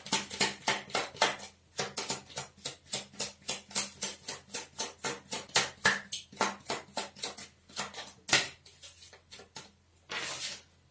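A deck of oracle cards being shuffled by hand, the cards slapping together in quick, even strokes at about four or five a second, with one longer swish near the end.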